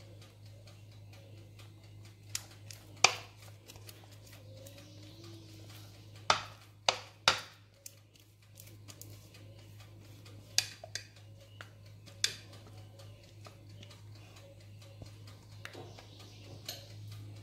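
Utensil and batter container clinking and knocking against a metal tube cake pan as cake batter is poured and scraped into it. There are sharp knocks about three seconds in, three in quick succession around six to seven seconds in, and a couple more later, over a steady low hum.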